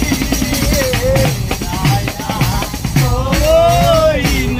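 Live folk singing by male voices to a hand-beaten frame drum (dafli), the drum keeping a steady beat under the sung melody.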